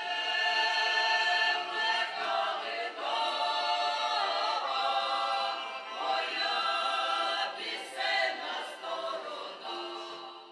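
Mixed folk choir of women's and men's voices singing a song in harmony, with long held notes, fading somewhat near the end.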